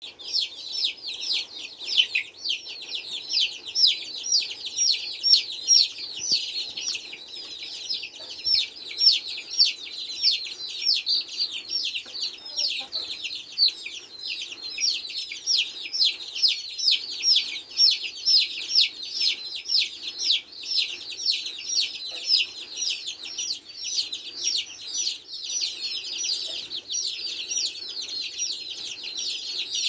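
Several young free-range chicks peeping without a break: a rapid, overlapping stream of high, falling peeps.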